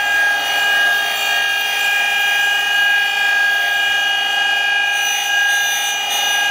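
Surface grinder wheel grinding the steel tip of a lathe live center, sparks flying: a steady high-pitched whine from the grinder with a hiss of the wheel on the steel.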